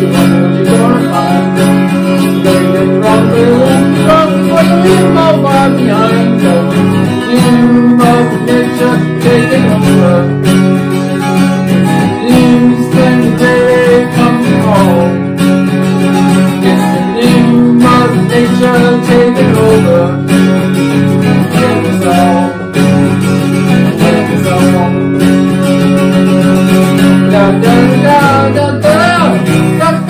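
Steel-string acoustic guitar strummed steadily through a rock song, with sustained low notes and a wavering melody line over it.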